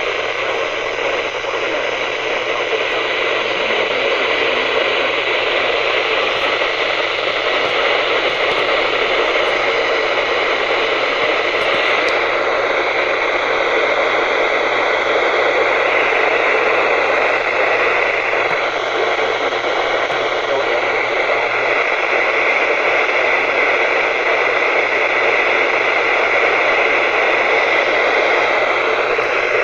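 Steady FM radio hiss from an RTL-SDR receiver tuned to a NOAA Weather Radio channel, with no broadcast audible over the noise.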